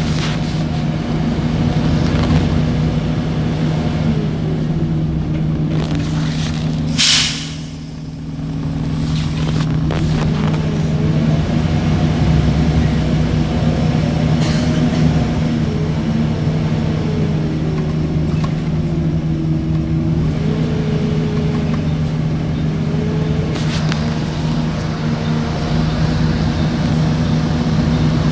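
Motor vehicle running on the move: a steady low engine hum with a higher tone that rises and falls as the speed changes. A short hiss about seven seconds in, after which the sound dips briefly.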